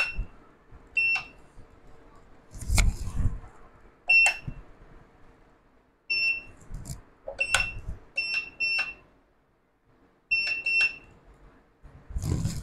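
ATM keypad beeping at each key press as digits are keyed in: about ten short, high beeps at an irregular typing pace. A couple of dull thumps, about three seconds in and near the end.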